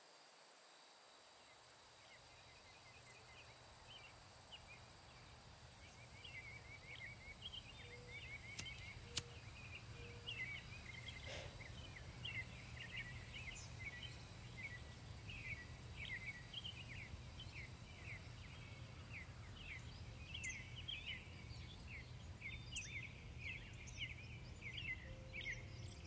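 Faint outdoor ambience fading in, with many short, high chirps of small birds coming thicker after the first few seconds over a low steady rumble.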